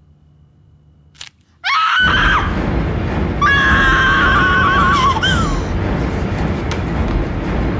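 A light switch clicks about a second in, then a sudden loud horror-score sting: a dense low noise with high, wavering, shrieking tones over it that come in twice and then fade into the noise.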